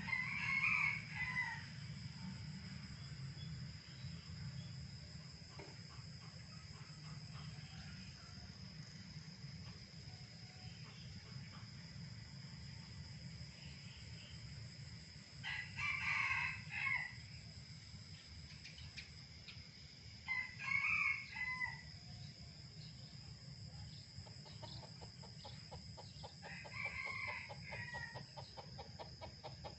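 Red junglefowl rooster crowing four times: once at the start, twice around the middle and once near the end, each crow short at about a second and a half. A steady high insect whine and a low hum run underneath.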